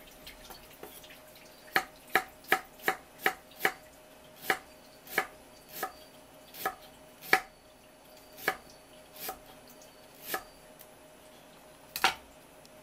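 Kitchen knife slicing peeled ginger thin on a wooden cutting board, each cut ending in a sharp knock of the blade on the wood. About fifteen cuts, quick at first at around three a second, then slower, with a last one near the end.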